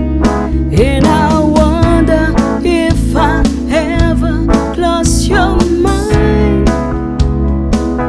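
A song: a singing voice carries a melody over instrumental backing with a bass line and a steady beat, with the voice coming in about a second in.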